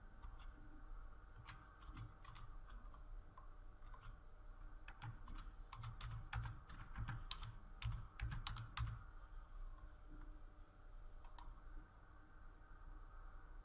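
Typing on a computer keyboard: scattered keystrokes at first, then a quick run of them in the middle, over a faint steady hum.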